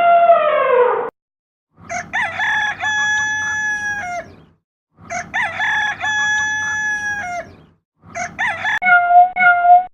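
A rooster crowing: the same long cock-a-doodle-doo played twice, after a falling horn-like tone ends about a second in. Near the end, a quick run of short, evenly repeated calls begins.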